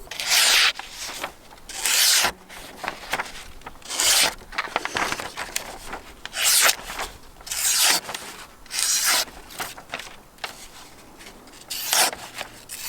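The edge of a Condor Terrasaur knife's 1075 high-carbon steel blade scraped across arm hair in a shaving test, about seven short rasping strokes a second or two apart. The out-of-the-box edge catches some hairs but is not shaving sharp.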